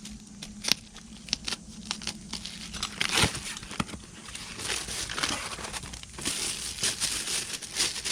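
Plastic packaging wrap crinkling and tearing as the parts are unwrapped by hand, with irregular clicks and a louder rustle about three seconds in.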